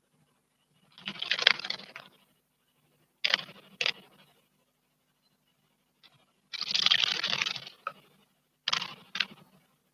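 A small bird bathing in a stone water basin, splashing and fluttering in quick bursts: two longer bouts of splashing, each followed by a couple of short splashes.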